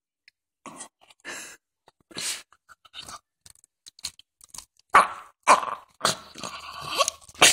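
Jack Russell Terrier making strange short noises in irregular bursts, louder and coming closer together in the second half, with a longer run of noise near the end.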